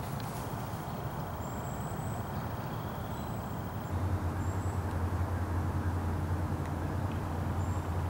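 Steady low outdoor rumble that gets louder, with a low hum, about halfway through, and a few short, faint high bird chirps.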